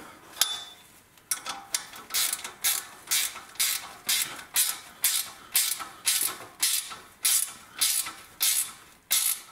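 Ratchet wrench worked back and forth in quick strokes, about two clicking strokes a second, tightening the clamp on a new exhaust pipe.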